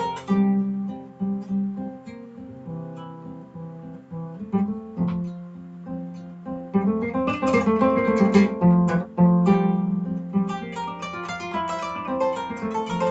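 Kora, the West African gourd-bodied harp-lute, played solo: plucked notes ringing over low sustained tones. The playing thins out and grows quieter early on, then turns fuller and louder from about halfway.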